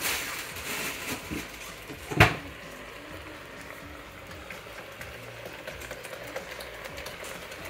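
Ground-meat tomato sauce simmering in a stainless steel skillet, stirred with a slotted spatula. A single sharp knock about two seconds in is the loudest sound, with small light clicks later on.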